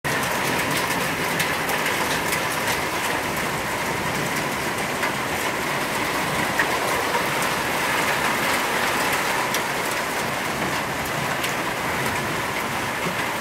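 Rain mixed with hail falling on a concrete patio and pool: a steady hiss dotted with many sharp ticks of hailstones striking.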